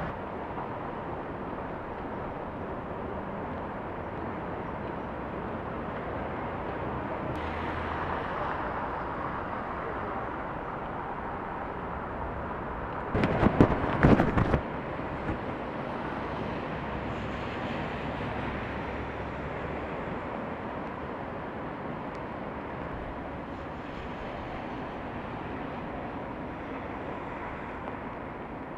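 Steady outdoor rushing noise of the storm, with a quick cluster of sharp knocks about halfway through.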